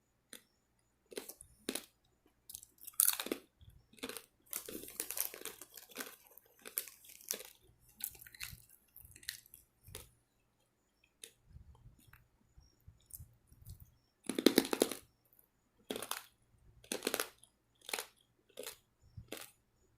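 Close-up crunching and chewing of hard, extremely crunchy seasoned pork-skin strips: irregular sharp cracks as the skins are bitten and ground between the teeth, with a burst of rapid crunches a few seconds in and a loud crunch past the middle.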